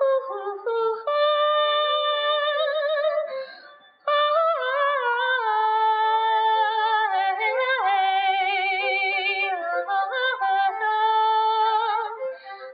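Music with a singing voice holding long, wavering notes; it fades to a short break about four seconds in, then resumes.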